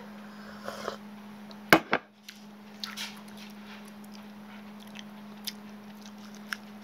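Quiet room tone with a steady low hum, broken about two seconds in by two sharp knocks in quick succession, with a few faint ticks.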